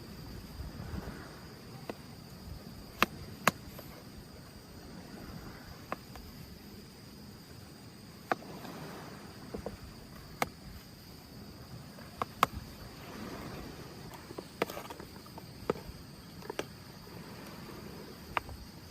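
Steady high-pitched insect chorus, with a dozen or so sharp clicks and taps scattered through it.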